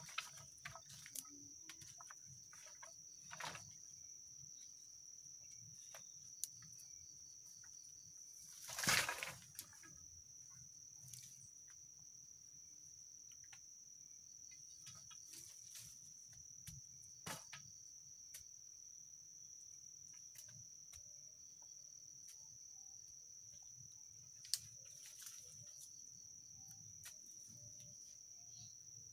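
Forest insects trilling steadily at a high pitch, with scattered sharp clicks and knocks of bamboo poles and strips being handled. A louder rustling clatter comes about nine seconds in.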